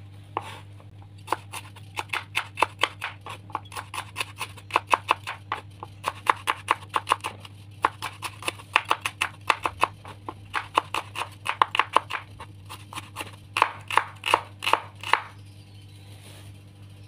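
Kitchen knife slicing shallots on a cutting board: quick, even chops about four or five a second, in runs broken by short pauses, stopping near the end.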